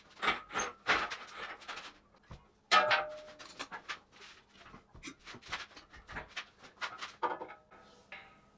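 Irregular metal clanks, knocks and clicks as a C41-16 pneumatic forging hammer hanging from a shop crane is shifted and lowered onto the bolts of its stand; a few sharp knocks stand out early, one with a short ring, then lighter clicks follow.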